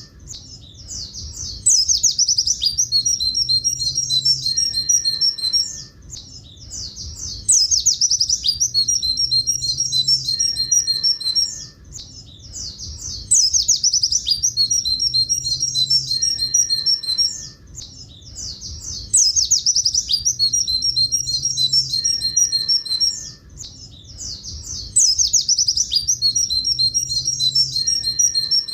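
Pleci buxtoni white-eye singing its long 'tulit tulit' phrases, high and thin with fast trills. The same stretch of song repeats as a loop about every six seconds, each pass a loud run of song followed by a softer one.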